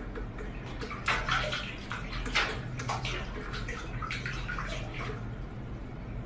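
A cat pawing and splashing water in a stainless steel kitchen sink: irregular small splashes, the loudest about one and two and a half seconds in.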